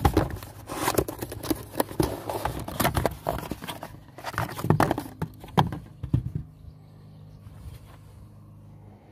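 Cardboard parts box being handled and opened and the new plastic third brake light slid out of it: rustling and scraping of cardboard with sharp knocks of plastic, for about six seconds before it goes quiet.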